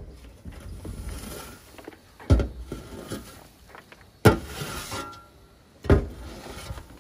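A metal scoop shovel scraping soiled bedding across the plywood floor of a chicken coop and tipping it into a plastic tub, with a sharp knock and a short scrape about every two seconds, three times.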